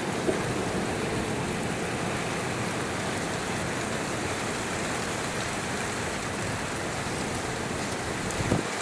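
Steady rain falling during a thunderstorm, an even hiss throughout. There is a short knock near the end.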